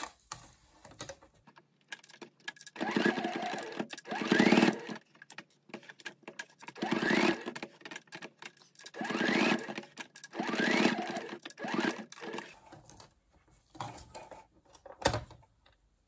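Electric domestic sewing machine stitching Velcro onto fabric in four short runs with pauses between, the motor's whine rising in pitch as it speeds up in each run. Lighter handling clicks follow near the end, with one sharp click.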